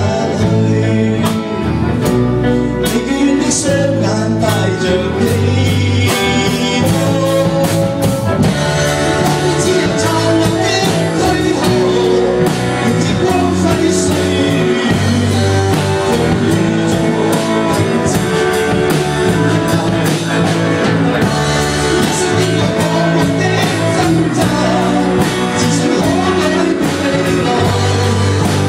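Small live rock band playing electric guitar, acoustic guitar and drums, with regular drum hits keeping the beat.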